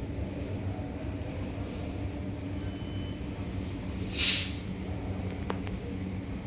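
A steady low mechanical hum, with one short, loud hiss about four seconds in.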